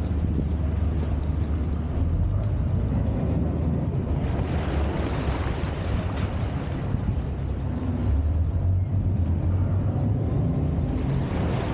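A boat's engine running with a steady low hum, under a rush of wind and water noise that grows louder from about four to seven seconds in and again near the end.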